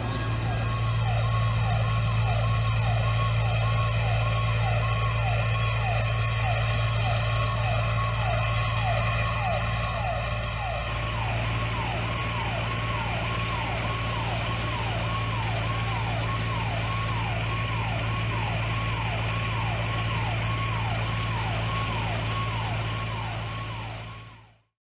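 Fire engine siren wailing in rapid repeated sweeps of pitch, about two a second, over a steady low engine hum; it fades out near the end.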